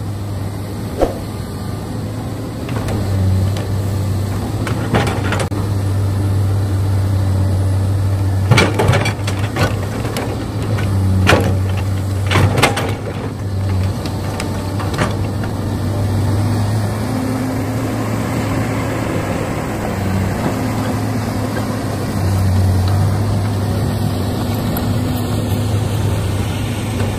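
Radio-controlled model excavator's motor and hydraulic pump humming steadily, swelling and easing in steps as the machine works. A run of sharp knocks and clatters sounds about a third of the way in.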